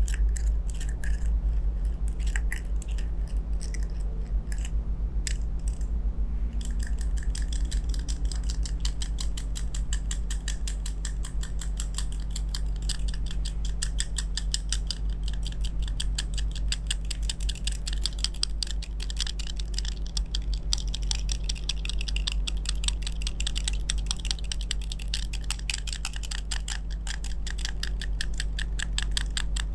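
Rapid light metallic ticking and clicking from small metal facial massage tools (roller heads and fine picks) worked over the face; scattered ticks at first, turning into a dense, fast clicking about six seconds in. A steady low hum sits underneath.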